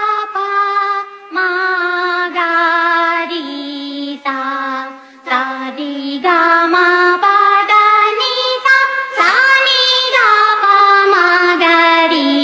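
Background music carried by a high singing voice, holding long notes and sliding smoothly from one to the next in a slow melody.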